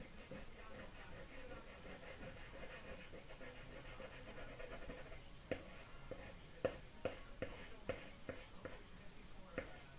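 Charcoal or pastel stick tapping and dabbing on paper taped to a wooden drawing board: a series of sharp, irregular taps in the second half, over a faint steady hum.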